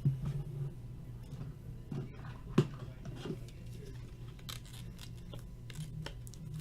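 Trading cards being handled at a table: soft rustles and light clicks of card stock and sleeves, with one sharper click about two and a half seconds in, over a low steady hum.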